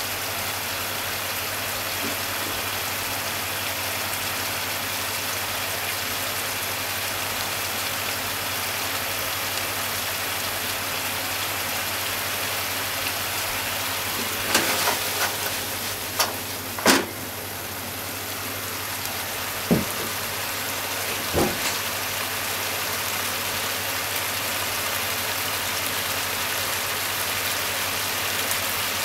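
Pork and onions simmering in sauce in a frying pan: a steady sizzle and bubbling over a low hum, with a few sharp knocks about halfway through.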